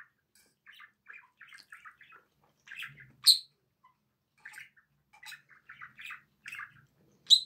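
Close-up mouth sounds of a person eating pasta: soft wet chewing and lip smacks, two or three a second. Two sharp clinks of a metal fork against a stainless steel frying pan stand out, about three seconds in and again near the end.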